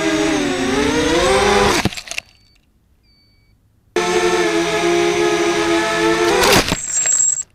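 Small FPV racing quadcopter's four 2400KV brushless motors and 5-inch props whining, the pitch rising and falling with throttle. The sound cuts off suddenly about two seconds in and returns abruptly about four seconds in. Near the end the whine sweeps sharply down with a crack as the quad hits the grass, then stops.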